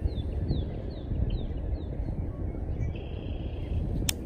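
Wind noise on the microphone, with a bird calling a quick run of short falling notes in the first two seconds, and a single sharp click near the end.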